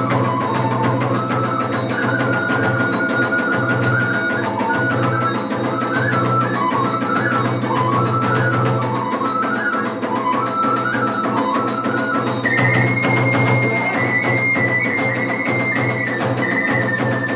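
Iwami kagura festival music: a bamboo flute (fue) melody over drums and small hand cymbals. About two-thirds of the way through, the flute leaps to a higher, held note.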